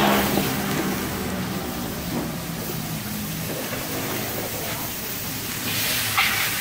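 Bean sprouts stir-frying in a hot steel wok on a gas stove: a steady sizzling hiss, with a metal spatula scraping and clanking against the wok, sharpest about six seconds in.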